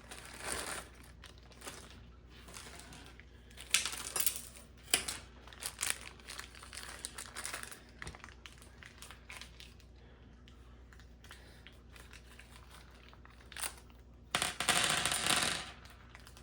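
Packaging crinkling and rustling while ceiling fan blades and blade irons are handled, with scattered light clicks and knocks. A longer burst of rustling comes near the end.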